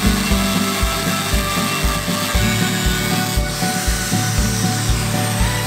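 Background music with a steady beat, over the hiss and whine of an angle grinder grinding steel.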